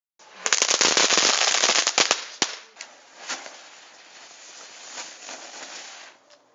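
Firecrackers going off on the ground: a loud, dense rapid-fire crackle of pops for about two seconds, then a few scattered single bangs and a fainter crackling fizz that dies away.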